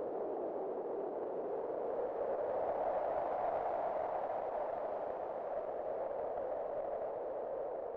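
Wind blowing in a steady rush that swells and rises a little in pitch about three seconds in, then eases back.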